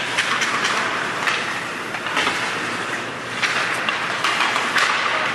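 Ice hockey skate blades scraping and carving on the ice in swelling patches, with sharp clacks of sticks and puck scattered through.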